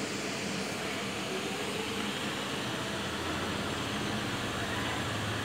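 Aquarium aerator running: a steady hiss of bubbling water with a low hum underneath.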